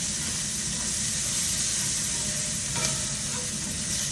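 Diced onions and minced garlic sizzling steadily in hot grapeseed oil in a skillet while a slotted spatula stirs them around the pan. One light click about three seconds in.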